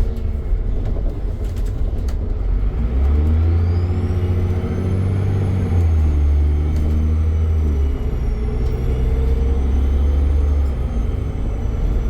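Dennis Trident double-decker bus accelerating under load: the diesel engine pulls hard while a high turbo whistle rises from about two and a half seconds in and then holds. The engine note changes twice as the bus changes up, and the whistle dips briefly near the end.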